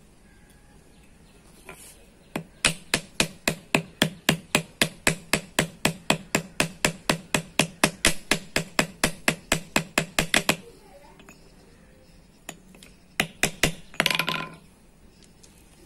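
Small ball-peen hammer tapping rivets to fix a friction lining onto a brake shoe, with the rivets backed on an upturned engine valve: a fast, even run of light metallic taps, about four a second for some eight seconds, then a few more taps and a short louder burst near the end.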